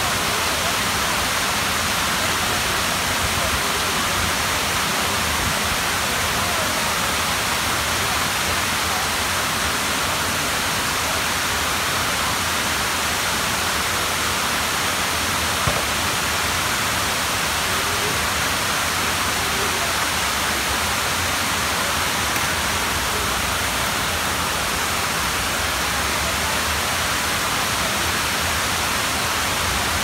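Waterfall running: a steady, even hiss of falling water that does not change in level.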